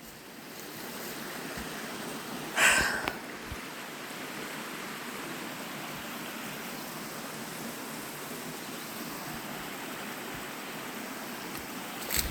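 Steady rush of flowing stream water, with one brief louder noise about two and a half seconds in.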